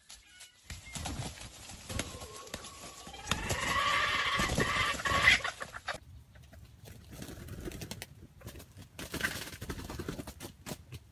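Wild junglefowl rooster calling: one drawn-out call of about two seconds midway and a short call near the end, over low rustling and thumps.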